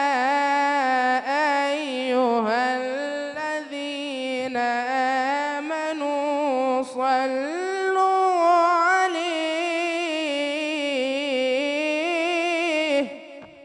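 A man chanting an Islamic ibtihal unaccompanied into a microphone: one long, ornamented line on a drawn-out syllable with wavering pitch. It climbs to a higher note about 7 seconds in and breaks off about 13 seconds in.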